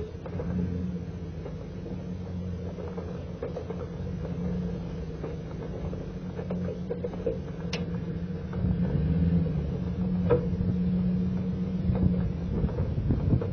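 Pickup truck moving slowly on a dirt track, towing a boat dock section: a steady low engine hum with scattered clicks and knocks from the truck and its load, getting a little louder after about eight seconds.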